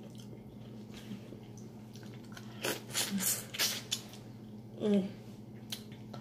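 Wet mouth sounds of a person eating sauce-coated seafood: a quick cluster of smacking and sucking sounds a few seconds in, then a brief voiced sound about five seconds in.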